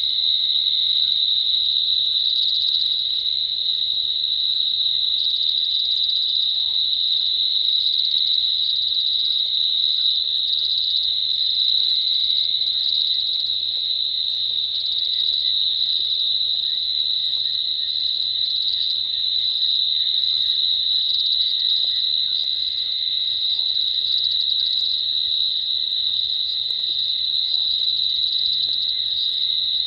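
Steady night chorus of crickets and other insects: a continuous high-pitched trilling that never breaks.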